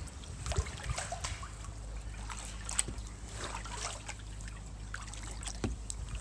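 Kayak being paddled over calm canal water: irregular small drips and light splashes of water off the paddle and around the hull, over a low steady rumble.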